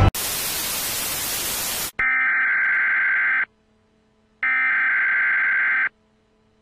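Television static hiss for about two seconds, cut off sharply, then an emergency-broadcast alert tone sounding twice in long, steady beeps of about a second and a half, with about a second of silence between them.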